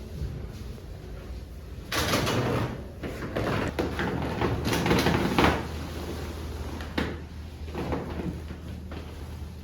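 Rustling and scraping movement noises as the patient moves onto an examination bed, in two long stretches, with a sharp click about seven seconds in.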